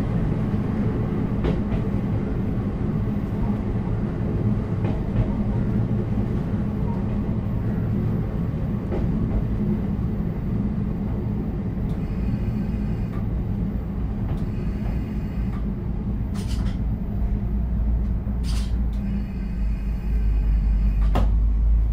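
Running sound inside a KiHa 54 diesel railcar: the diesel engine drones steadily over the rumble of the wheels on the rails. In the second half a faint high whine comes and goes, with a few clicks.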